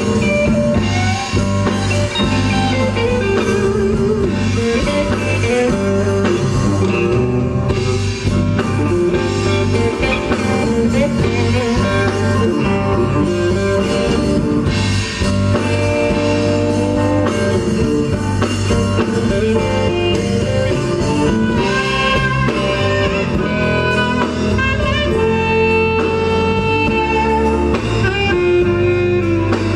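Live gospel band music, an instrumental passage with drums and guitar over a steady bass line.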